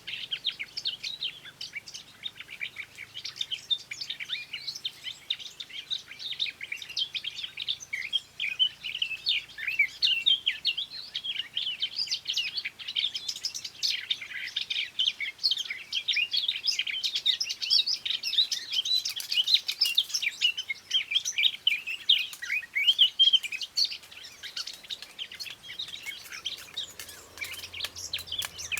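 Several songbirds singing and chirping at once, a dense, continuous chorus of quick high chirps and trills.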